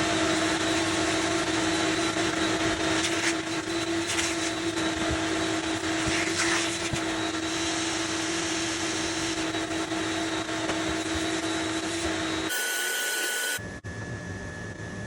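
A motor running steadily, a constant hum under a loud hiss, until an abrupt cut about twelve seconds in, after which a quieter steady hiss remains.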